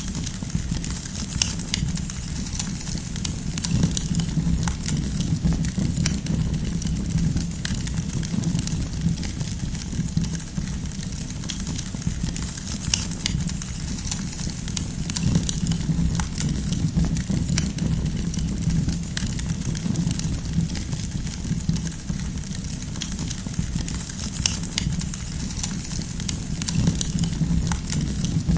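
Campfire burning: firewood crackling with scattered sharp pops and snaps, irregularly spaced, over a steady low rumble of the flames.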